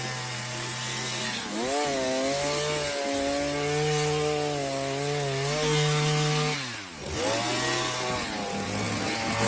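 Proyama 42.7cc two-stroke multi-tool engine running with the hedge trimmer attachment, cutting hedges. The engine revs up about two seconds in, drops briefly when the throttle is let off near the end, then revs back up.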